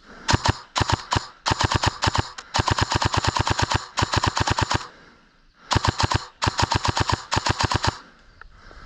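Airsoft gun firing full-auto in a string of short, rapid bursts, with a pause about halfway through.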